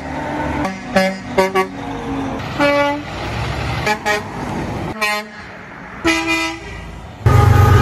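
Horns of passing dump trucks tooting in a string of short blasts, some in quick pairs and a few held a little longer, over heavy truck engine and road noise. About seven seconds in, a loud locomotive horn sounds over the rumble of a passing train.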